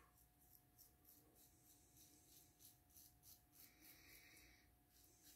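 Faint scratching of a double-edge safety razor cutting stubble through shaving lather, in short strokes about four a second, with one longer stroke near the end.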